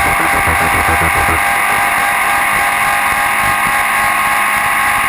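Honda VF750C Magna motorcycle at steady road speed: loud, constant engine and wind rush picked up on the bike. A low rhythmic pulsing runs under it and stops about a second and a half in.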